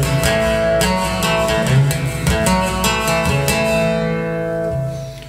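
Guitar being strummed, several chords in a row ringing out, then dying away near the end.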